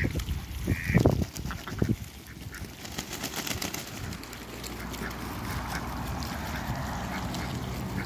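A mixed flock of Muscovy ducks and geese dabbling and splashing in a shallow puddle, bills clicking in the water. There are two short calls near the start and a couple of louder splashes around the first two seconds.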